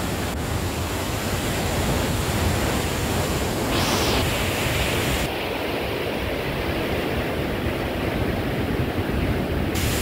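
Steady roar of a swollen river rushing through rapids and a rocky canyon: dense white-water noise. Its tone changes slightly about five seconds in.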